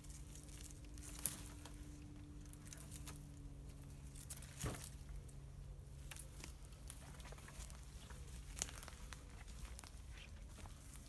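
Crackling of twigs and dry leaf litter underfoot and branches brushing past as someone pushes through woodland undergrowth, with sharp snaps about a second in, near the middle and again later. A faint steady low hum runs under the first half.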